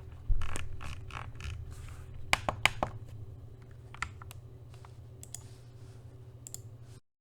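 TM680 mechanical keyboard with Akko CS Matcha Green switches and PBT keycaps being pressed key by key in slow, scattered strokes, with a heavier thud about a quarter second in and a quick cluster of clicks near the middle. The presses thin out and the sound cuts off suddenly near the end.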